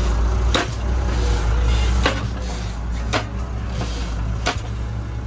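Tractor-mounted Protech post driver hammering a fence post in: four heavy strikes a little over a second apart, over the tractor engine's steady running, heard from inside the cab.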